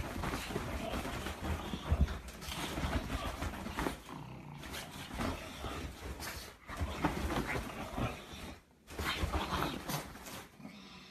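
A pug making its dog noises while playing on a bed, with irregular rustling and soft thumps of the bedding.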